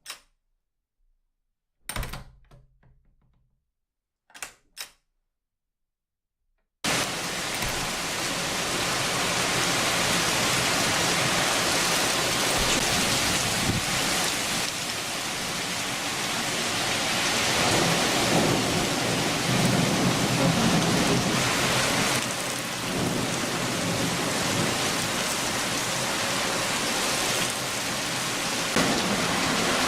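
A heavy rain downpour starts abruptly about seven seconds in and keeps on hard, with deeper thunder rumbling under it in slow swells. Before it come a few short, separate sounds.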